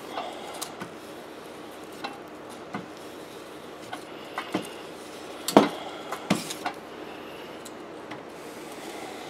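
A hot clothes iron sliding and pressing over transfer paper on a copper-clad circuit board, rubbing, with scattered knocks and clicks as it shifts on the board and table. The loudest two knocks come a little past halfway.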